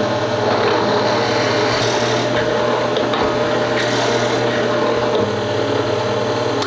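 Drill press boring lengthwise into a square wooden fountain-pen blank: steady motor hum under the rasping of the bit cutting through the wood.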